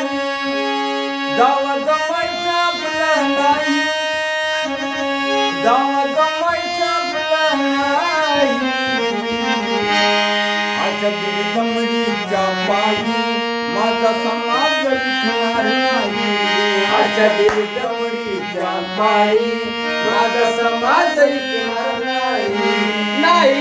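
Harmonium played: a melody of shifting reed notes and chords over a steady low held note.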